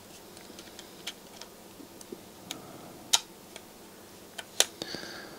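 Scattered small clicks and ticks of the plastic frame and sheet-metal plate of a Sony MiniDisc deck's disc-loading holder being handled and turned over in the fingers. The sharpest click comes a little past the middle, with two more close together near the end.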